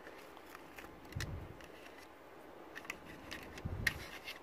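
Faint clicks and light taps of plastic instrument-cluster parts being handled, with a soft thump about a second in and another near the end.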